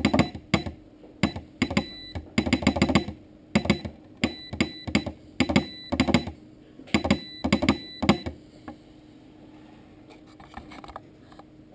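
Homemade straight Morse key being keyed by hand, its lever and contacts clicking down and up in pairs in an irregular rhythm of short and long presses. The keying stops about eight seconds in, with a few faint clicks near the end.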